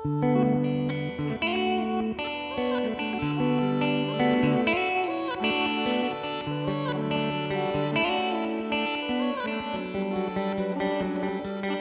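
Electric guitar, an American Vintage II Jazzmaster, played through an Old Blood Noise Endeavors BL-44 reverse pedal: overlapping notes and chords played back in reverse, with some notes gliding up and down in pitch.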